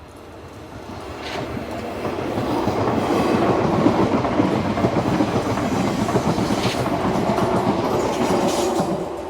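SNCF Z 24500 electric multiple unit passing by: the rumble of its wheels on the rails builds over the first few seconds, holds loud with a few sharp clicks, then falls away near the end.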